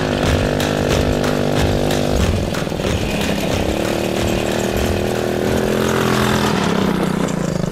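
Background music with sustained, buzzy chords that change abruptly twice, over a beat that is clearest in the first second.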